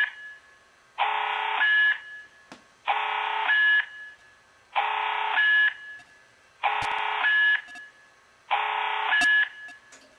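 Fire alarm voice-evacuation speaker sounding the alert tone of a voice evacuation sequence: five even, pulsed blasts about one every two seconds, each just under a second long and stepping up louder toward its end.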